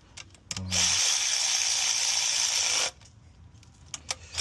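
Ratchet tightening down intake plenum bolts: a run of rapid ratcheting lasting about two seconds, then a few short clicks near the end.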